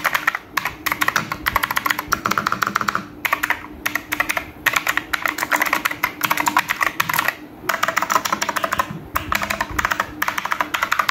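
Aula M75 mechanical keyboard being typed on quickly: dense runs of key clicks and clacks, broken by short pauses several times, played as a sound test of its switches.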